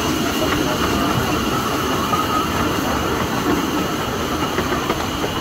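Steady rumble and rattle of a 15-inch-gauge miniature railway train's carriage running along the track, heard from on board.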